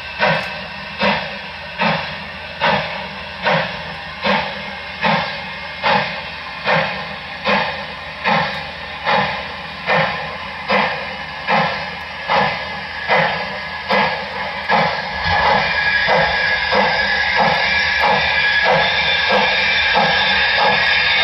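Sound-equipped HO scale Southern Pacific GS-4 steam locomotive (Broadway Limited Paragon 4 sound) chuffing, its exhaust beats quickening as it picks up speed. About fifteen seconds in, a steady loud hiss of steam and a low rumble join the chuffs.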